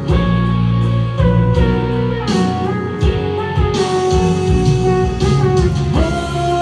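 Instrumental break in a slow pop ballad: a guitar melody over bass and a steady drum beat, with no singing.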